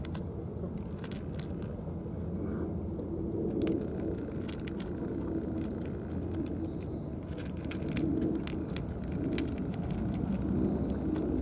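Cats eating wet food from plastic trays: many small, sharp chewing and lapping clicks over a steady low rumble.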